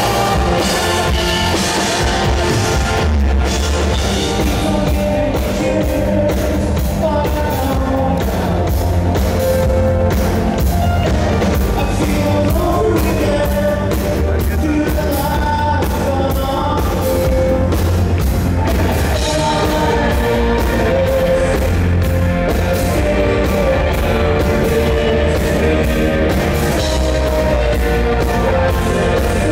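Live rock band playing loud: distorted electric guitars, bass and a drum kit keeping a steady beat, with a male lead singer singing over them.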